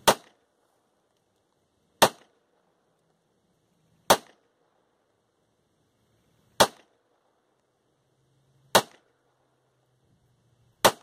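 Ruger SR1911 pistol firing 230-grain .45 ACP rounds: six single shots, about two seconds apart.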